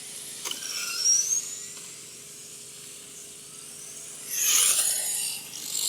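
Remote-control race cars' motors whining as they speed round the track, with high rising whines about a second in and a louder, closer pass starting just after four seconds.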